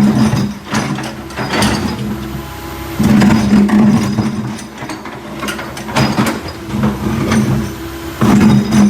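Backhoe's engine running and working, swelling louder several times, with metallic clanks and knocks from the machine.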